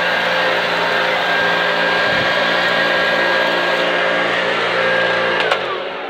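Hoover U1104 upright vacuum cleaner running steadily on carpet, its motor sounding nice and healthy. Near the end it is switched off with a click and the motor winds down, its pitch falling.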